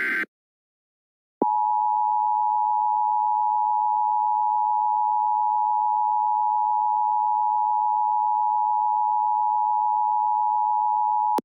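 The last of the screechy EAS SAME header data bursts ends right at the start, then after about a second of silence the Emergency Alert System two-tone attention signal (853 and 960 Hz together) sounds steadily for about ten seconds and cuts off abruptly. It is the alert tone that announces an emergency message, here an Amber Alert, is about to follow.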